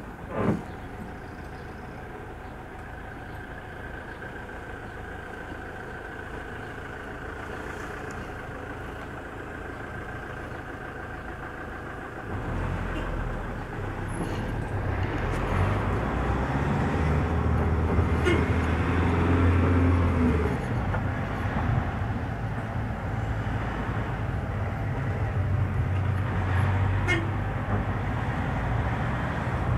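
Inside a moving city bus: a steady hum and traffic noise, with a short sharp knock about half a second in. About twelve seconds in, a much stronger low engine rumble comes in as the bus gets under way, loudest a little later, and it then keeps running.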